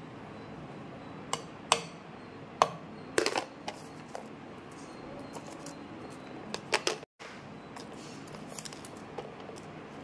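Sharp clicks and taps as whole spices and curry leaves are tipped from a plate into a clay pot of raw chicken pieces: a few single clicks, a cluster about three seconds in and another near seven seconds, over a steady low hiss.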